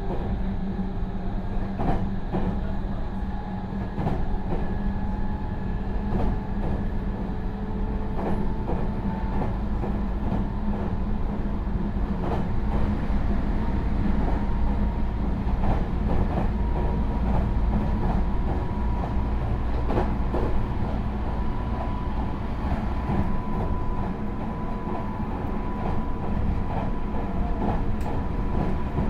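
Meitetsu 3700 series electric train heard from inside the passenger car while running: a steady whine from its Toyo Denki GTO VVVF inverter and traction motors, with one tone rising slightly midway, over wheel rumble and the regular clicks of rail joints. The inverter noise is unusually loud for a car interior, which the recordist takes for abnormal noise from this car's Toyo inverter.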